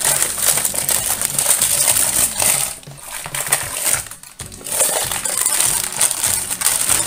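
Sheet of baking paper crinkling and rustling as it is handled and peeled off a rolled-out pastry lid, with short breaks about three and four seconds in.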